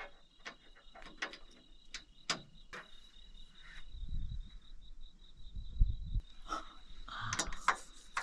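Crickets trilling steadily, under scattered sharp clicks and a few dull knocks from handling a solar panel as it is fitted onto its timber rack.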